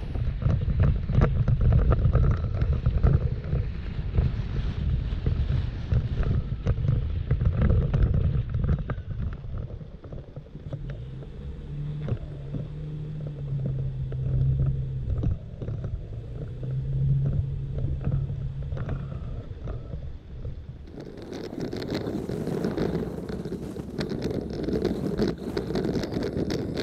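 Toyota Tacoma driving on a gravel dirt road: a steady low engine hum and tyre rumble with a crackle of gravel under the tyres, and wind buffeting a microphone mounted outside on the truck. About two-thirds of the way through, the sound turns brighter and hissier.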